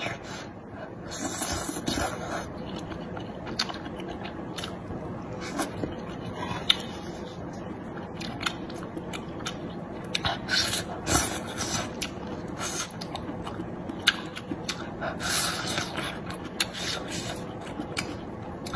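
Close-up eating sounds: slurping wide glass noodles in spicy oil sauce and chewing them, a run of short airy slurps and wet mouth noises at irregular intervals.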